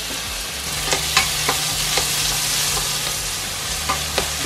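Sliced onions sizzling in perilla oil in a stainless steel pot, stirred with a spatula that clicks against the pot several times.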